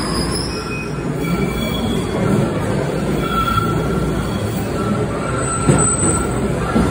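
Subway trains in an underground station: a steady heavy rumble of cars on the rails, with wheels squealing in thin high tones. In the second part an MBTA Blue Line train pulls in along the platform, squealing almost continuously, with a sharp knock about six seconds in.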